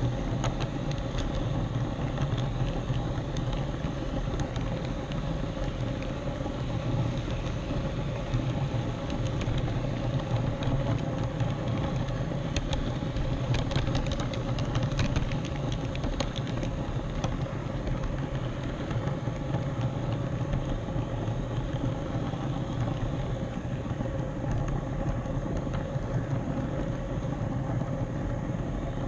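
HO scale model train with an on-board camera running along the track: a steady motor whir and wheel-on-rail rumble, with a cluster of sharp clicks about halfway through.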